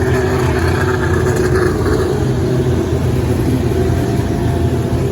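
Micro sprint race cars running, their engines blending into one continuous, loud drone with small rises and falls in pitch.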